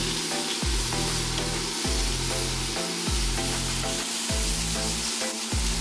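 Wahoo steaks sizzling as they sear on a hot flat-top griddle, under background music with a steady beat.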